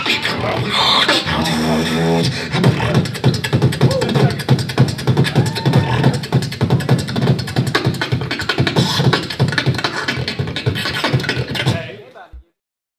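Beatboxer performing into a handheld microphone: a fast, dense run of vocal kick, snare and hi-hat sounds, with a short pitched vocal line about two seconds in. It fades and stops abruptly near the end.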